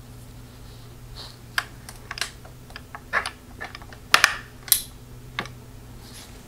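A run of irregular light clicks and taps, about a dozen, the loudest pair about four seconds in, over a steady low hum.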